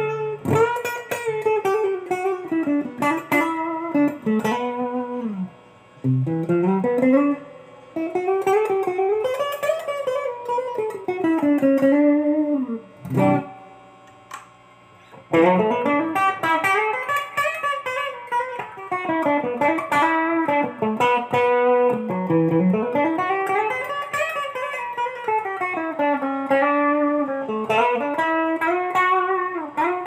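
Photogenic Telecaster-style electric guitar played solo: a single-note lead line whose notes bend and glide up and down in pitch. It breaks off briefly about six and eight seconds in, and for about two seconds near the middle.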